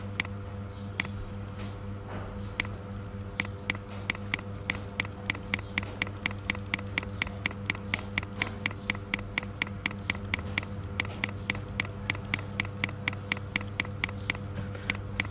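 Computer mouse clicking: a few scattered clicks, then a quick, even run of about four clicks a second, over a steady low hum.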